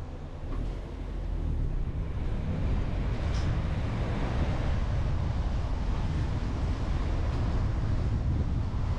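Wind rumbling on the microphone over a steady outdoor hiss, growing louder about a second and a half in and then holding steady.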